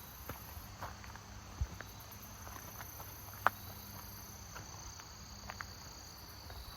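Crickets singing in a steady high-pitched chorus, with a few soft clicks and knocks scattered through it, the sharpest about three and a half seconds in.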